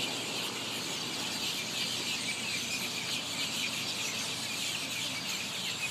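A large flock of birds calling all together: a steady din of many overlapping high chirps.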